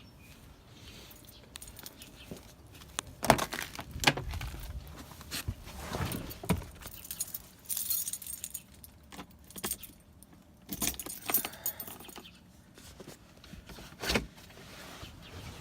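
Car keys jangling amid a series of clicks and knocks as they are handled in the car, with sharp thumps about three seconds in, four seconds in and near the end.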